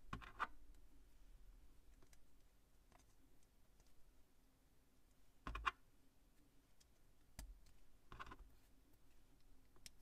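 Faint clicks of small plastic Plus-Plus building pieces being pressed together and handled. They come as a few scattered clicks, the loudest near the start and about halfway through.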